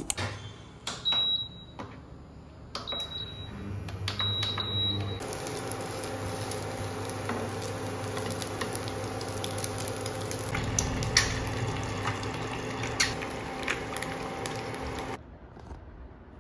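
Microwave oven: three keypad beeps, the last one longer, then the oven running with a steady hum for about ten seconds before it cuts off.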